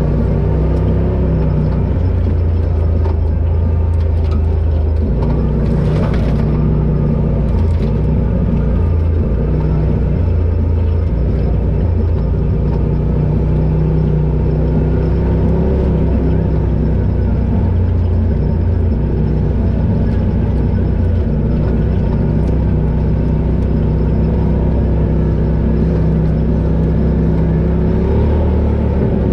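Polaris RZR Pro XP side-by-side's turbocharged twin-cylinder engine running steadily under way on a trail, its pitch stepping up and down as the throttle changes. A brief rushing noise comes about six seconds in.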